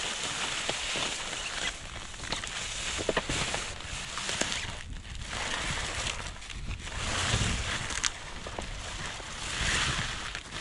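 Strong wind buffeting the microphone in gusts, rising and falling every second or two, with a few faint clicks.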